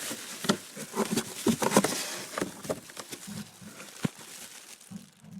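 Handling noises as lathe accessories are picked up and moved: irregular clicks, light knocks and rustling, with one sharp click about four seconds in.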